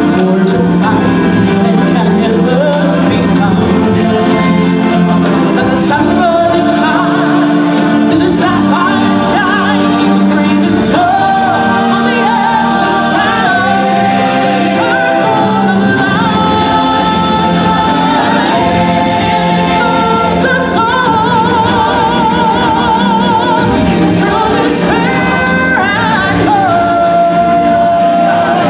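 Live singers performing through microphones over backing music. In the second half several long notes are held with a wavering vibrato.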